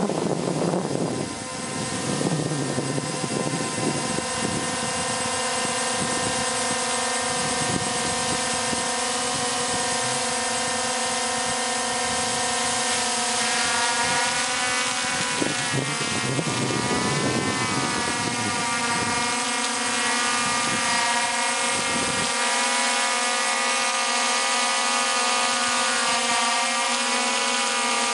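DJI Phantom quadcopter with T-Motor MN2214 920KV brushless motors hovering: a steady multi-tone propeller hum whose pitch wavers up and down for a few seconds in the middle as the motors adjust their speed.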